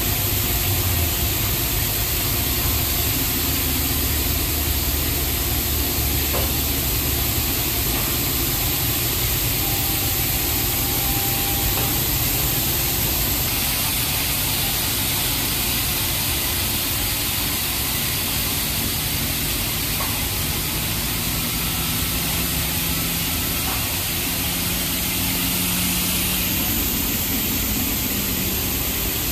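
NCS/Ryko Radius touch-free car wash spraying foam and water over a car from its overhead gantry: a steady hiss of spray, with a low hum in the first several seconds.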